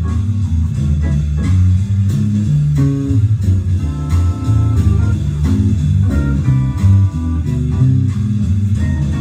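Music with a prominent bass line and guitar notes playing over it.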